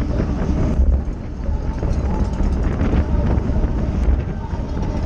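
Wind buffeting the microphone of a camera mounted on a racing bicycle, a heavy low rumble that swells and eases.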